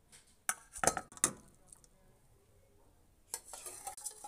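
Stainless-steel slotted spoon clinking against a steel pot and plate as boiled vegetables are lifted out: three sharp clinks in the first second and a half, then a longer scraping, rattling stretch near the end.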